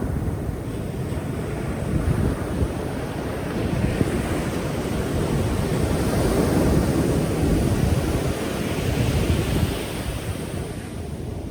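Pacific Ocean waves breaking and washing in. The surf swells to a peak midway, then eases off near the end, with some wind on the microphone.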